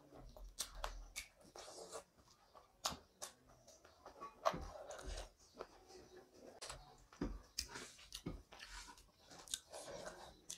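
Close-miked chewing of a mouthful of rice and chicken curry, with a run of sharp, irregular wet mouth clicks and lip smacks.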